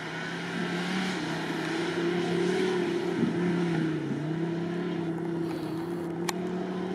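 Off-road vehicle's engine running steadily under load in low-range gear, getting louder over the first couple of seconds. Its pitch dips briefly twice, about three and four seconds in.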